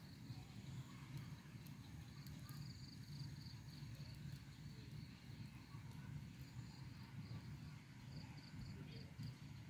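Quiet outdoor ambience: an uneven low rumble, with a faint high-pitched trill pulsing on and off, like insects.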